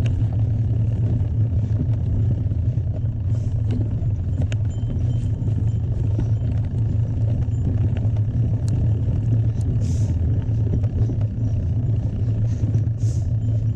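Steady low rumble of wind and tyre noise while riding a mountain bike on a trail, with a few scattered small clicks and rattles.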